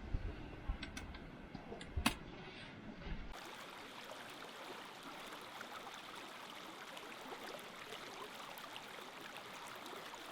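A vehicle's low rumble with a sharp knock about two seconds in, then, after an abrupt change, a faint steady rush of running stream water.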